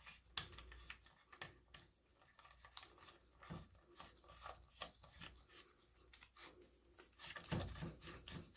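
Faint clicks and scraping as a shower hose's end nut is turned by hand onto the metal threads of a chrome handheld shower head, with a few soft handling knocks near the end.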